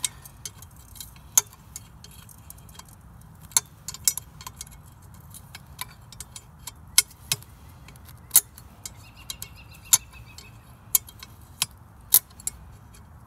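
Sharp metallic clinks at irregular intervals, a second or two apart: a hand wrench knocking against the bolts of a Flint & Walling jet pump as they are worked in a little at a time without a ratchet.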